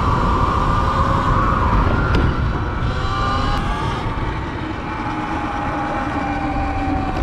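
Wind and road rumble from riding a Sur-Ron electric dirt bike, with a faint whine from its electric motor drifting slowly in pitch.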